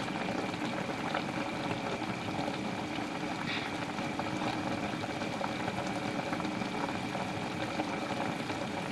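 Vinegar-and-water broth of a fish paksiw simmering in a stainless steel pan, bubbling steadily, with a few faint clinks of a metal spoon as broth is ladled over the fish.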